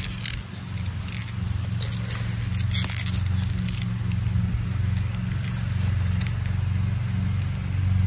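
A steady low hum, with light rustling and small snaps as snow-pea pods are handled and picked from the vines.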